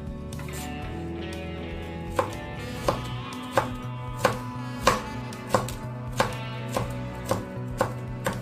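Chef's knife slicing garlic cloves on a bamboo cutting board: sharp knocks of the blade on the board, about one and a half a second, starting about two seconds in. Soft background music underneath.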